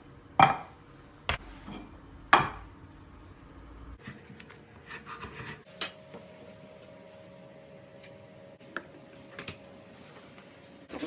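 Three sharp knocks of hard objects in the first few seconds, the first and third loudest, then light clicks and a short bit of scraping as items are handled on a work surface.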